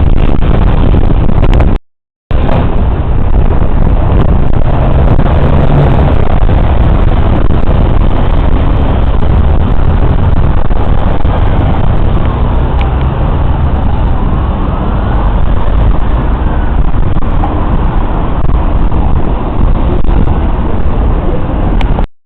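Loud, steady roadside noise of passing traffic, heavy and rumbling in the low end. It drops out completely for a moment about two seconds in.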